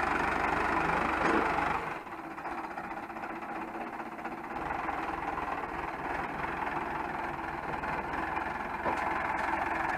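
Tractor engine running steadily, the sound dropping a little quieter about two seconds in and then holding.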